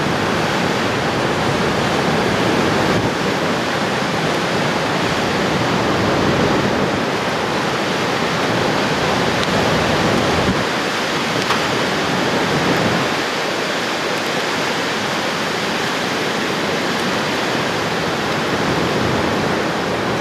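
Roar of a nearby mile-wide wedge tornado: a loud, steady rushing like a waterfall, easing slightly about two-thirds of the way through.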